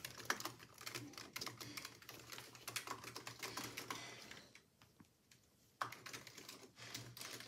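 Razer Huntsman Mini, a 60% keyboard with optical switches, being typed on quickly with both hands: a dense run of key clacks that stops for about a second just past the middle, then starts again.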